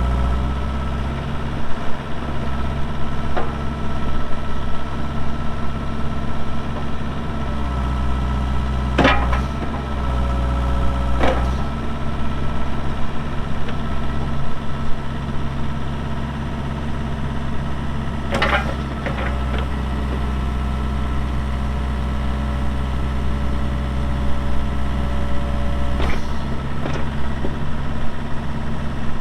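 Bobcat E42 mini excavator's Kubota diesel engine running steadily, its low note swelling at times as if under hydraulic load. Four sharp knocks are scattered through it.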